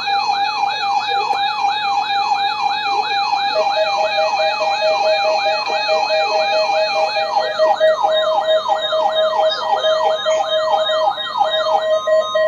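Electronic alert siren sweeping down in pitch nearly three times a second, layered over several steady tones. Near the end the sweeping stops, leaving a steady high warning tone and a pulsing beep.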